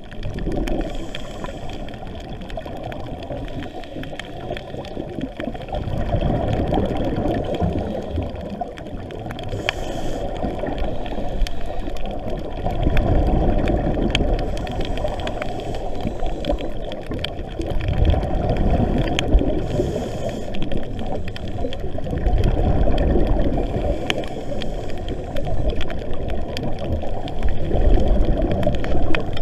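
Scuba regulator breathing heard underwater: exhaled bubbles gurgling and rumbling in swells every four to six seconds, with a fainter hiss between them.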